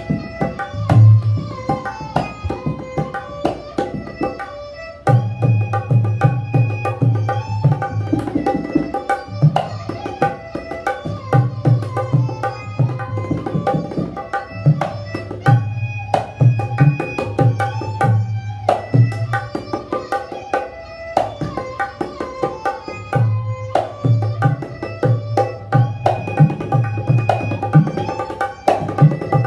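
Dholak, a rope-tensioned two-headed barrel drum, played by hand in a fast, steady rhythm: deep booming bass strokes under ringing higher strokes. It drops softer for a moment about four seconds in, then comes back louder.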